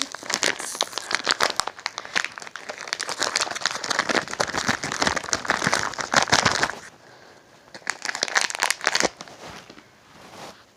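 Plastic candy package crinkling as it is opened and handled, in a dense run of crackles that stops about two-thirds of the way in, followed by a shorter burst a second later.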